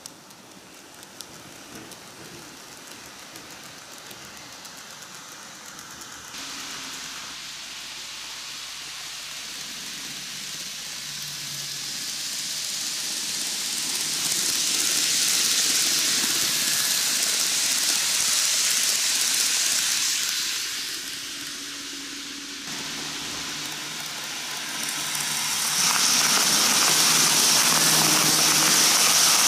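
N-gauge model train (Micro Ace Keikyu 2100 series, 12 cars) running on TOMIX canted track: a steady rushing hiss of wheels rolling on the rails. It grows louder as the train nears, is loudest around the middle, eases briefly about two-thirds through, and is loud again near the end as the cars pass close.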